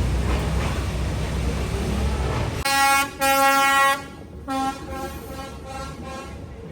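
A train rumbling past, then its horn sounding two loud blasts and a short third one, with fainter horn tones trailing after.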